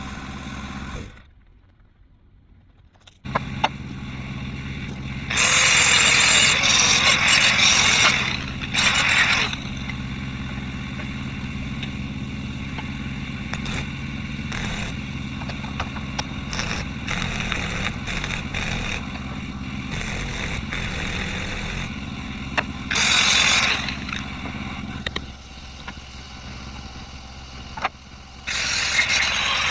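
A small engine running steadily, with several loud bursts of hissing noise over it.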